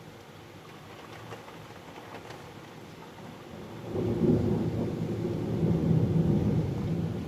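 Thunder rumbling during a hailstorm: it starts suddenly about four seconds in and keeps rolling, loud and low. Before it there is a faint patter of hail and rain with a few light ticks.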